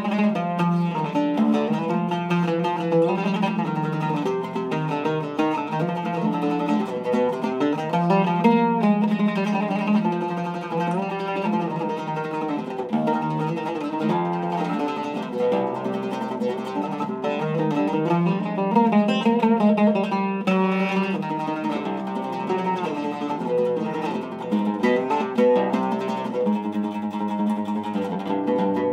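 Zaryab oud with a cedar soundboard, a maple and mahogany back and Kürschner strings, played with a plectrum: a continuous melody of quick single plucked notes.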